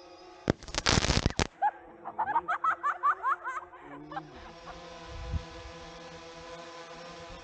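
Drone propellers humming steadily. About half a second in comes a loud burst of crackling lasting about a second, then a quick run of high, wavering squeaks for about two seconds, and from about halfway a steady hiss joins the hum.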